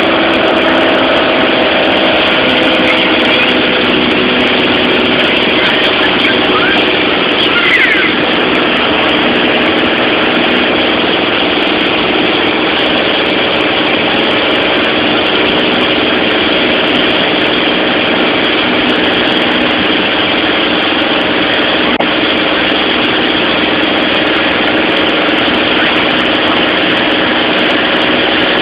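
Light aircraft's engine and propeller heard inside the cabin in flight: a loud, steady drone.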